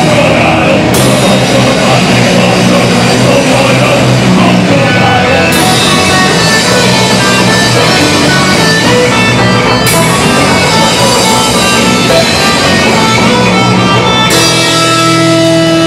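Rock band playing loudly: electric guitar over a drum kit, with a cymbal crash about every four to five seconds. Near the end the music settles into a held, ringing chord.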